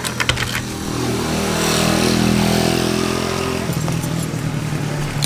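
Moped engine running, swelling in revs to its loudest about two seconds in, then settling to a lower, steadier note near the end.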